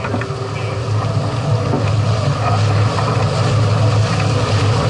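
A sailing catamaran under way: a steady rush of wind on the microphone and water running past the hulls, with a deep rumble.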